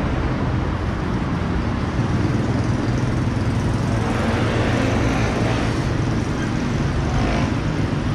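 Steady road traffic noise from cars on the street and the overpass, swelling briefly as vehicles pass.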